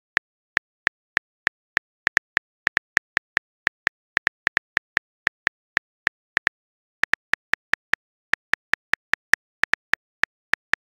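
Smartphone on-screen keyboard key clicks, a quick patter of about four or five taps a second with a short pause a little past the middle, as a text message is typed.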